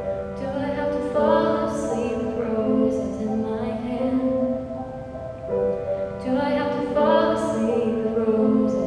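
A young woman singing a song to her own grand piano accompaniment, in two sung phrases with a short break just past the middle.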